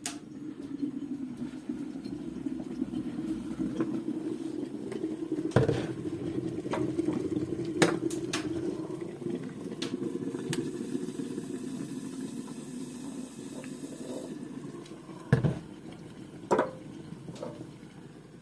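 Fire burning in a homemade iron stove (burzhuika), a steady low rush of the flames drawing hard, with a few sharp cracks or ticks. The even draw goes with a stove that has a strong draught and burns without smoke.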